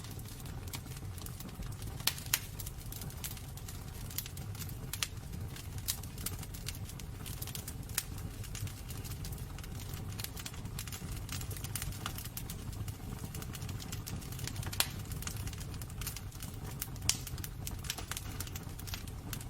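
Wood burning in a fireplace: irregular sharp crackles and pops over a steady low rumble of the flames.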